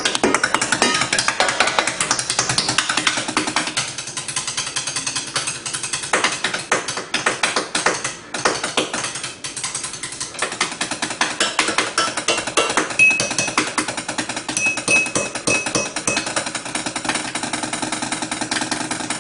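Chopsticks drumming fast, dense rolls and patterns on kitchen pots, pans and other kitchenware: a rapid stream of clicks and clanks, with a few short, high metallic pings about two-thirds of the way through.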